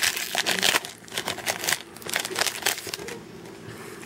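Crinkling and rustling of a foil Yu-Gi-Oh booster-pack wrapper as the cards are handled. Dense crackles for about three seconds, then a softer rustle.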